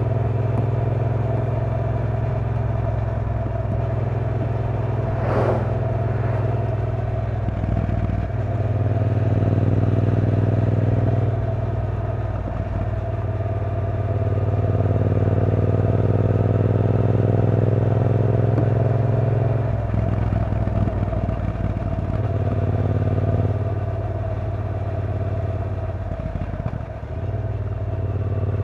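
A 2016 Triumph T120 Black's 1200 cc parallel-twin engine pulling steadily at road speed. Its note drops several times as the throttle is eased and picks back up, and rises near the end as the bike accelerates. A brief sharp noise cuts in about five seconds in.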